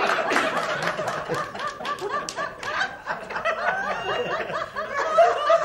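Many people laughing together at a joke's punchline, overlapping laughs and chuckles.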